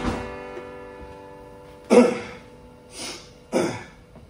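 Acoustic guitar: a strummed chord rings out and fades, then three sharp strummed chords come about two, three and three and a half seconds in, opening the song.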